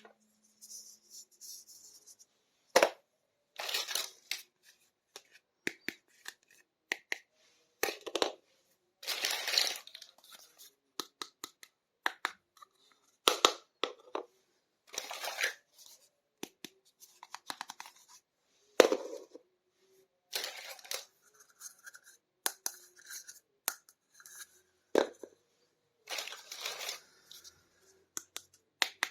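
Unboxing a small plastic toy kitchen set: irregular bursts of packaging being torn and handled, between sharp clicks and taps of small plastic pieces.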